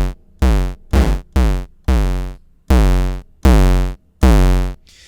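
A kick drum sampled from a piece of audio feedback, a buzzy square- or sawtooth-like tone, triggered eight times in an uneven pattern on a software sampler. Each hit is short and heavy in the bass, cut off quickly because the sustain is turned down and only a little decay is left.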